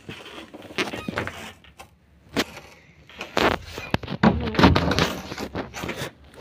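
Irregular knocks and rustles of footsteps and a hand-held phone being jostled while walking, with a denser stretch of rustling in the middle and near the end.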